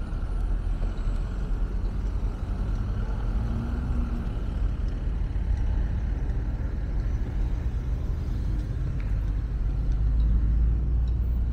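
City street traffic: cars and other vehicles passing with a steady low rumble.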